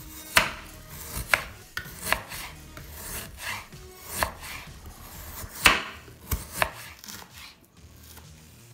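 Kitchen knife slicing a partly frozen block of beef thinly on a wooden cutting board. Sawing strokes through the stiff meat each end in a sharp knock of the blade on the board, irregularly about once a second, the loudest a little past halfway.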